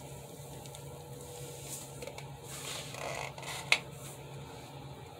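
Soft handling sounds as a plastic cup of acrylic pouring paint is slid across and lifted off a canvas, over a low steady hum, with one sharp click a little past the middle.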